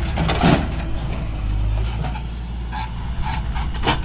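Diesel engines of a JCB backhoe loader and a tractor running steadily, with a loose rushing crash about half a second in as a bucketload of soil drops into the tractor's trolley. Several shorter knocks follow near the end as the bucket works the ground.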